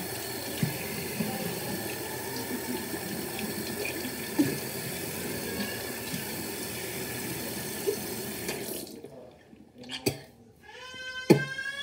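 Tap water running steadily into a sink while toothpaste is rinsed out of the mouth, with a few small splashes. The water shuts off about nine seconds in, followed by a few knocks.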